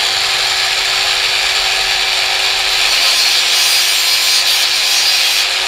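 Proxxon long-neck angle grinder with a small abrasive disc cutting into the coils of a hard steel spring: a steady, loud, high hiss of grinding over the motor's even whine.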